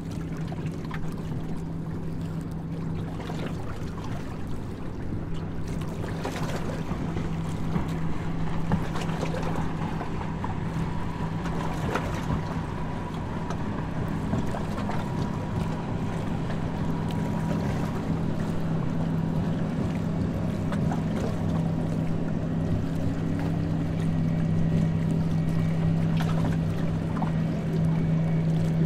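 Tour boat's engine running steadily with a low hum, over the continuous rush of water and wind as the boat cruises, growing slowly louder.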